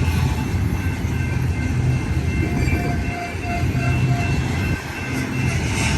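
Freight cars of a long mixed freight train rolling past close by: a steady low rumble of wheels on the rails, with a faint, thin high-pitched squeal over it.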